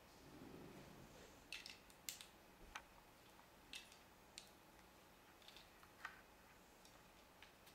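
Faint, scattered sharp clicks of small plastic Lego pieces being handled and pressed together, several over a few seconds with gaps between.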